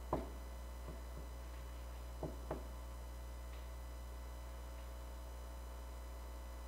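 A handful of light clicks in the first three seconds, as the rocker-arm shaft bolt is handled at a small motorcycle cylinder head, over a steady electrical hum.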